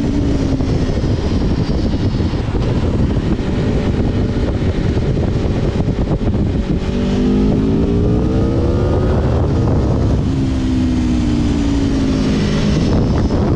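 Aprilia Tuono V4 Factory's V4 engine on its stock exhaust, under way: the revs climb from about seven seconds in and drop at a gear change near ten seconds, then pull on in the next gear. A constant low rush of noise runs underneath.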